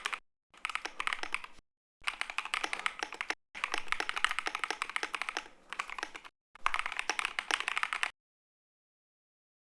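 Mechanical keyboard typing: rapid key clicks in five short snippets spliced together, each breaking off abruptly into dead silence. The last snippet stops about eight seconds in, and silence follows.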